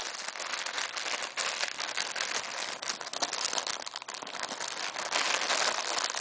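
Packaging crinkling and rustling continuously as cables are handled and unwrapped.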